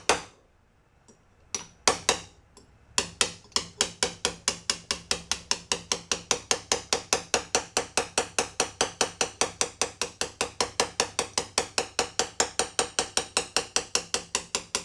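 Light hammer taps on a straight punch driving a seal ring down into its register in a bearing housing. A few separate strikes come first, then about three seconds in the tapping settles into a fast, even rhythm of about six taps a second.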